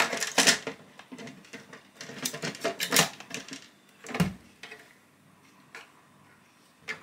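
Plastic parts of a Bosch ART 30 grass trimmer being handled and pushed together: the guard rattling, clicking and scraping against the motor housing, with one duller knock about four seconds in.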